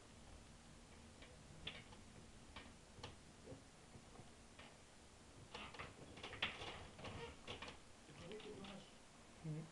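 Faint, irregular ticks of storm drops striking a window pane, coming thicker for a couple of seconds in the middle.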